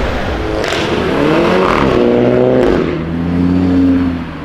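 Audi R8 V10 Plus Spyder's V10 engine accelerating hard, its note climbing steadily in pitch. Almost three seconds in the pitch drops sharply, then climbs again, loudest just before the end.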